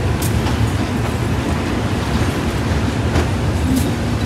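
Ordinary-class passenger train running, heard from inside the carriage: a steady low rumble with a few sharp clacks from the wheels.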